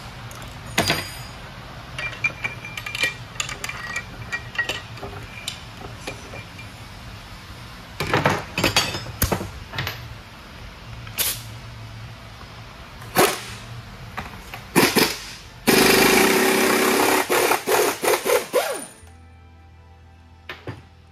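Steel transmission parts and hand tools clinking and knocking during teardown of an Eaton Fuller 10-speed truck transmission, some strikes ringing briefly. Near the end a loud air tool runs for about three seconds.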